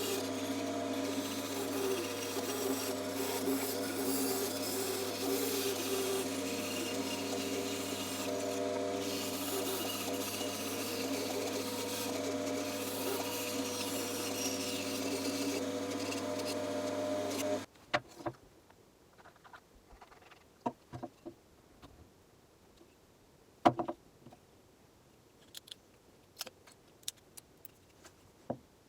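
Bandsaw running and cutting wood, with a steady hum that stops suddenly about two-thirds of the way through. After that come scattered light clicks and knocks of wood being handled.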